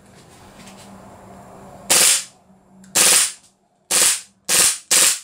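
Gas blowback airsoft pistol (Tokyo Marui Hi-Capa Xtreme .45) running on propane from a Pro-Win magazine, fired shot by shot. About two seconds in come five sharp cracks of the shot and slide cycling, roughly a second apart at first and then quicker, with another starting right at the end.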